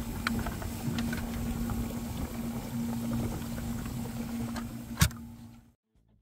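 Water churning and bubbling in a cooler converted into a live well, driven by a 12 V bilge pump circulating water and an aeration pump, with a steady pump hum underneath. A sharp knock comes about five seconds in, and the sound then cuts off to silence.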